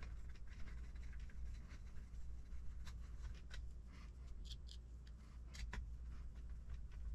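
Sparse small clicks and light scraping as small screws and plastic suspension parts are handled, over a steady low hum.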